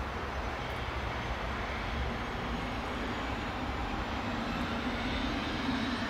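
Twin Pratt & Whitney Canada PW306 turbofans of a Cessna Citation Latitude running at low power as the jet rolls along the runway after landing: a steady rushing hum with a faint whine that rises slowly in pitch and grows a little louder toward the end.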